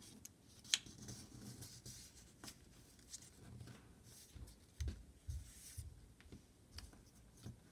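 A sheet of paper being folded and creased by hand: faint crinkling and scraping with scattered light ticks, and a few soft thumps about five seconds in.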